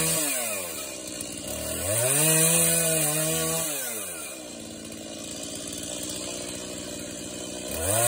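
Small engine of an orange handheld power cutter trimming cedar hedge branches. It revs up to full speed about a second in, holds for a couple of seconds, drops back to a lower speed, then revs up again near the end.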